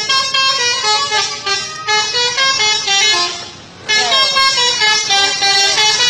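Telolet horn on a bus: a multi-trumpet air horn playing a quick tune of changing notes, several tones sounding together. It fades out a little after halfway and starts again with a falling slide in pitch.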